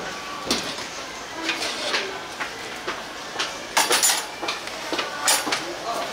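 Irregular clinks and knocks of kitchen utensils and dishes, about half a dozen, with a quick cluster near the middle.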